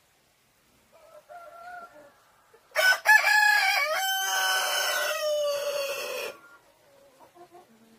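A rooster crows once, a loud call of about three and a half seconds that sags in pitch toward the end, after a couple of soft hen clucks.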